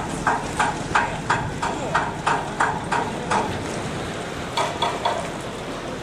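Marines' boots marching in step on a concrete quay, sharp even footfalls about three a second, stopping about three and a half seconds in, with a few more steps near the end.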